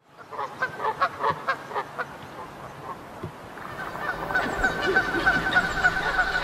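A run of goose honks, sampled at the opening of an instrumental beat track: short pitched calls in quick succession. From about halfway a sustained wavering tone builds and grows louder beneath them.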